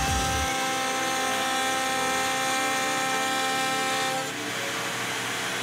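A DeWalt router on a belt-driven Shapeoko 3 XXL CNC milling a groove in a titanium plate, giving a harsh, steady, high whine over hiss. About four seconds in the whine's tones drop out, leaving only an even rushing noise.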